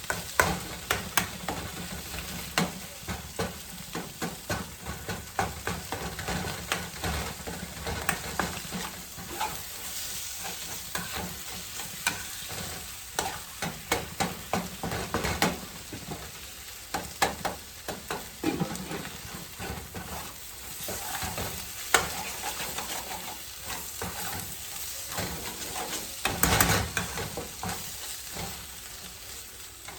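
Canned corned beef sizzling in a frying pan while being stirred and scraped with a utensil, with irregular clicks and scrapes against the pan over a steady hiss.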